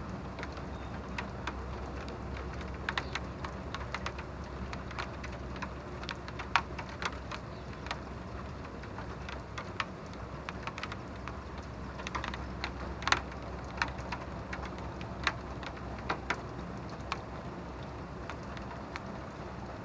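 Steady rain with irregular sharp taps of single drops striking a hard surface, thicker through the middle.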